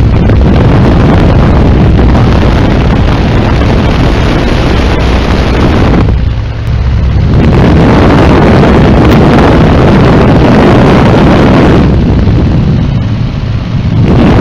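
Heavy wind rush over the microphone in a biplane's open cockpit in flight, with the aircraft's engine running as a steady low drone underneath. The wind eases briefly about six seconds in and again near the end.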